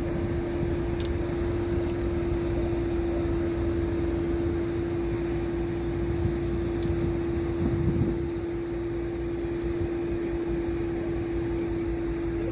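Cement carrier ship's machinery: a steady droning hum on one unchanging pitch over a low rumble, swelling briefly about eight seconds in.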